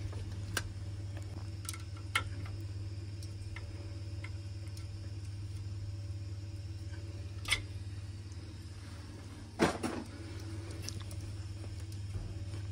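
Sparse light metal clicks and a louder double knock about three-quarters of the way in, from seating a new underfloor heating pump head on its pump body and tightening its 4 mm Allen bolts. A steady low hum runs underneath.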